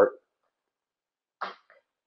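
The last word of a man's speech cuts off right at the start. Then there is silence, broken about a second and a half in by one short, soft throat noise from him, close to a small cough.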